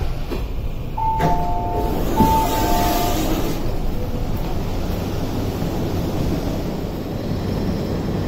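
MTR SP1900 (IKK) train standing at the platform, a steady low hum with platform ambience. About a second in, a two-note electronic chime sounds twice.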